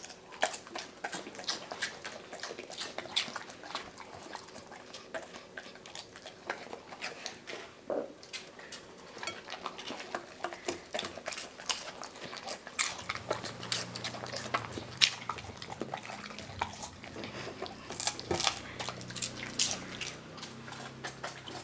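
Golden retriever crunching and chewing vegetables: a run of irregular, sharp crunches and clicks. A low hum sets in about halfway through.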